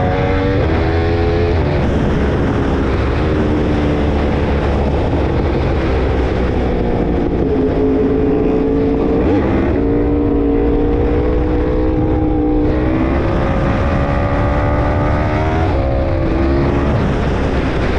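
Yamaha R1 sport bike's inline-four engine running under way, its pitch dropping and rising several times as the revs change through the corners, with a heavy low wind rumble on the helmet microphone underneath.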